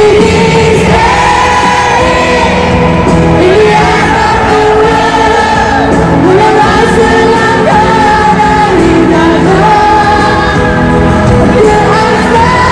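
A pop song with a lead singer, played loud over a stadium sound system: held sung notes step up and down over a steady backing band.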